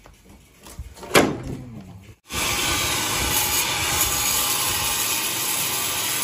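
A single knock with a short falling ring about a second in. After a brief cut, a sawmill's saw starts cutting coconut wood with a loud, steady hiss-like whine.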